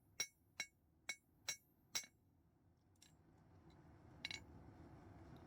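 Hammer blows on a horseshoe nail against an anvil, flattening its head: five sharp, evenly spaced, ringing strikes at about two a second, then one softer strike near the end.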